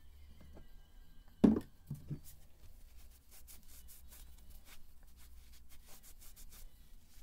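A loud knock about a second and a half in, followed by two lighter knocks. Then a cloth rubbing in quick, repeated wiping strokes.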